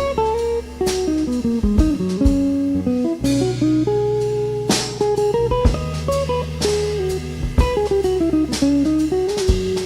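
Live band playing an instrumental break: a lead guitar plays a melody of single notes over held bass notes and a drum kit.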